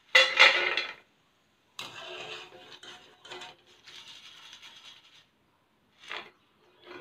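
Crisp deep-fried macaroni rattling as it is tipped from a wire-mesh skimmer onto paper towel, loudest in the first second, then the skimmer scraping and clinking around the metal frying pan to scoop up more, with a couple of short clicks near the end.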